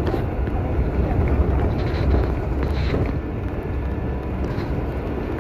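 A bus running, heard as a steady low rumble of engine and road noise.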